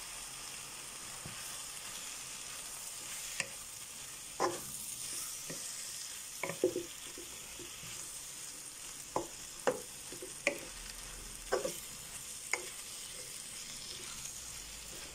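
Chopped vegetables, mushrooms, beef and freshly added tomatoes frying in a pan with a steady sizzle. A wooden spoon stirs and knocks against the pan in short, irregular clacks about once a second.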